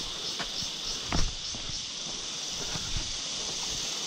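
Steady, pulsing high-pitched drone of insects, with a few footsteps or knocks on rock, the loudest about a second in.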